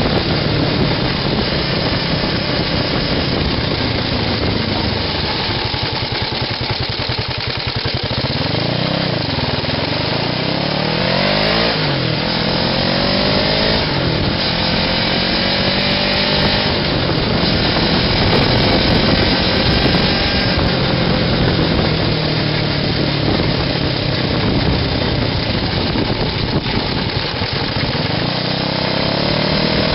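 Small buggy engine running while the buggy drives along, its pitch rising and falling several times as it revs up and down, then climbing again near the end.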